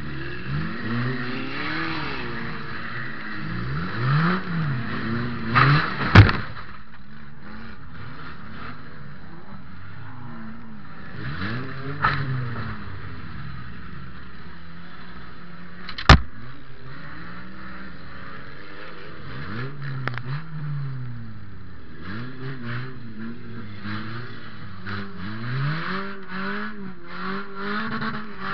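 Toyota Matrix's engine revving up and falling back again and again, heard from inside the stripped cabin. Two loud crashes of car hitting car come about six and sixteen seconds in, with a smaller hit around twelve seconds.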